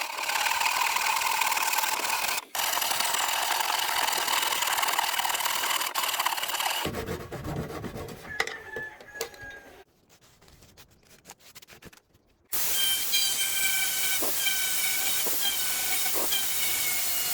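Power tools running in short clips: a steady high whine with hiss, which dies away, then after a few seconds of quiet a different steady hissing tool starts suddenly.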